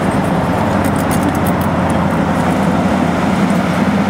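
Loud, steady noise of highway traffic, cars and trucks passing at speed.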